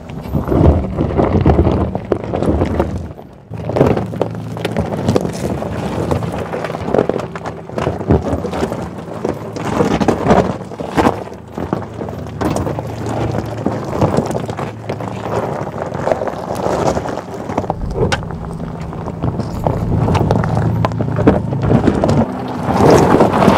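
Tyres of a Mercedes G580 electric SUV crunching and knocking over loose rock and gravel as it crawls a rough track, with a low steady hum underneath.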